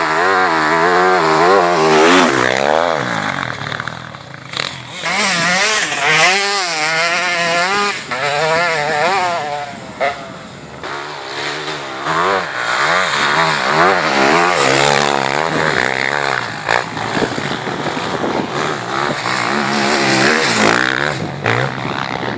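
Motocross dirt bikes running hard, engine pitch climbing and dropping again and again as the riders work the throttle. It grows louder and fades as they pass, dipping briefly a few times.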